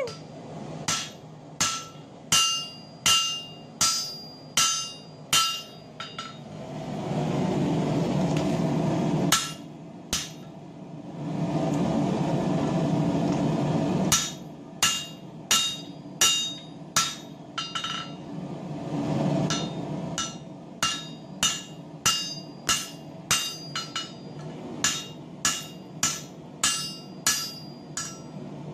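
Hammer blows striking hot steel on an anvil, each with a bright metallic ring, about one and a half a second, in two runs. Between the runs, for several seconds, there is a steady rushing noise.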